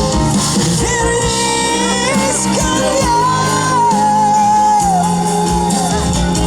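Acoustic rock song with guitar accompaniment: a singer holds one long wordless note with vibrato, sliding down in pitch near the end.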